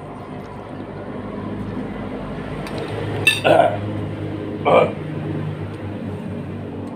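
A man coughs twice, short and sharp, while eating very spicy Samyang fire noodles: once about three seconds in and again a second and a half later. A steady low hum runs underneath.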